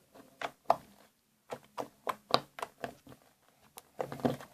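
Homemade slime being kneaded and mixed by hand, giving a string of irregular short sticky clicks and squelches, busiest near the end.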